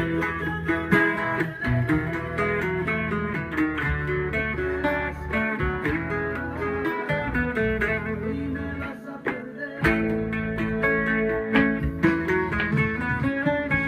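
Bajo sexto played with a pick: a norteño accompaniment of strummed chords and plucked bass runs.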